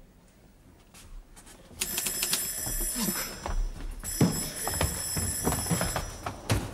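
Electric doorbell ringing in two long rings, each about two seconds, with a short break between, along with a few dull thumps.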